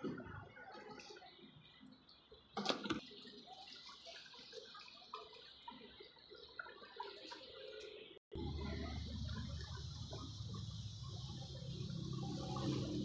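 Liquid gypsum plaster pouring from a plastic bucket into a tile mould, splashing and trickling, with a short clatter about two and a half seconds in. After a break near eight seconds, a steady low hum rises beneath the pouring.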